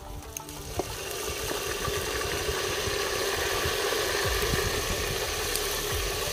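Chopped tomatoes sizzling as they are tipped into a hot pot of fried onions; the sizzle builds up within the first second and then holds steady.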